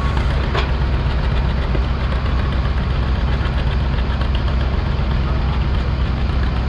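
Vintage John Deere tractor engine running hard and steady under load while it pulls a weight-transfer sled.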